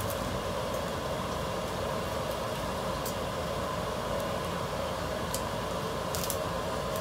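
Steady kitchen drone, with a few faint clicks scattered through it.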